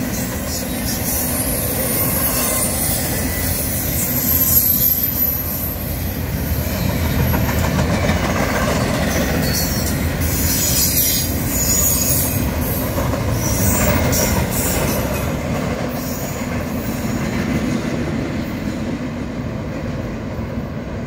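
Double-stack intermodal freight train passing at speed: steady rumble and rattle of wheels on the rails, with high-pitched wheel squeal now and then, most of all about a second in and between about ten and fourteen seconds in. The highest sounds fade in the last few seconds.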